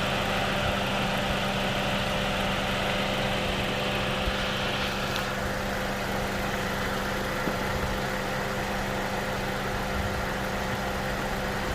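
Car engine idling steadily with the air conditioning running, heard close under the bonnet. A higher hiss sits over the engine hum and stops about five seconds in.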